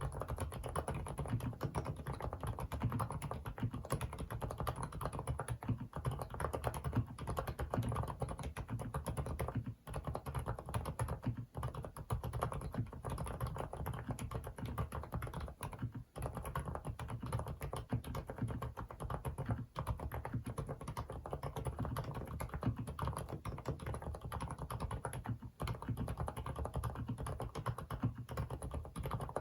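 Continuous fast typing on an FL-ESPORTS CMK75 mechanical keyboard fitted with Kailh silent cream linear switches: a dense run of low-noise, bubbly keystrokes that starts suddenly.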